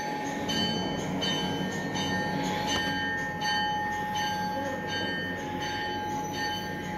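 A train running: a steady rumble under a steady whine, with occasional faint clicks.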